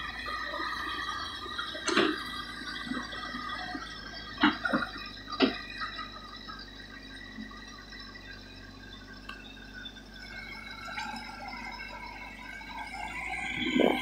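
JCB tracked excavator running, its diesel engine and hydraulics giving a steady hum with a whine. There are sharp metallic clanks about 2 seconds in and a cluster around 4 to 5 seconds. Near the end a rushing, pouring noise rises as the bucket swings over the dump truck.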